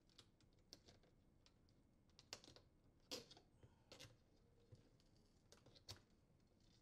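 Faint clicks and taps as a small flathead screwdriver presses the retaining tab of a dishwasher's rear rack stop and the stop is worked off the metal upper-rack rail, a handful of small clicks spread over a few seconds against near silence.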